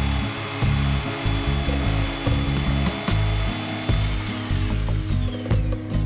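Electric jigsaw cutting through a wooden board with a steady motor whine. About four seconds in it is switched off and the whine falls away as the motor winds down. Background music plays throughout.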